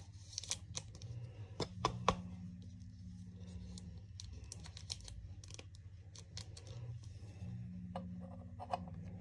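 Trading cards being handled in thin plastic penny sleeves: a run of light plastic clicks and crinkles, with a few sharper snaps about two seconds in and again near the end, over a low steady hum.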